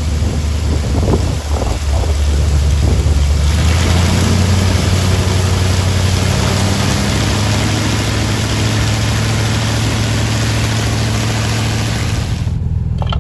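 13-litre, 780-cubic-inch high-compression aircraft engine running on a ground run-up. Its power is brought up about three and a half seconds in, and it then runs steadily at the higher setting.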